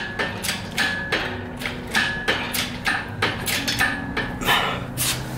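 Background music with a steady percussive beat, about three hits a second, over sustained low notes that change every second or so.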